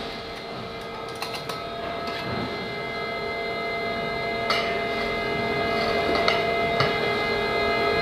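Steady machinery hum with a high whine, slowly growing louder, broken by a few short sharp knocks as a flexible suction hose is dragged out across a concrete floor.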